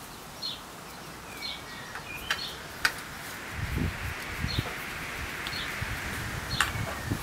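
Wrench and socket working the clutch spring bolts of a Honda XL250 engine, with a few sharp metal clicks, the loudest about three seconds and six and a half seconds in, and low handling rumble in the second half. A bird gives a short chirp about once a second.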